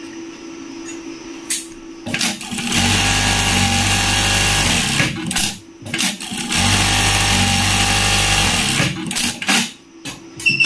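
SunStar SPS/D-BH3000G industrial buttonhole machine sewing a buttonhole in two steady runs of about two seconds each, the first starting about three seconds in, with sharp mechanical clicks between the runs and near the end from the clamp and knife. Its cutter knife lever has a newly fitted replacement spring to cut down the knife's cutting noise.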